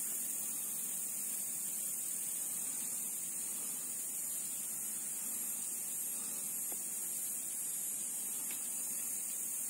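Steady high-pitched hiss, even throughout, over faint low background ambience.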